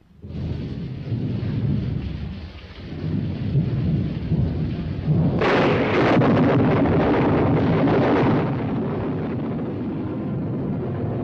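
Film storm effect: rolling thunder over a steady hiss of rain, with a louder crash of thunder about five seconds in that slowly dies away.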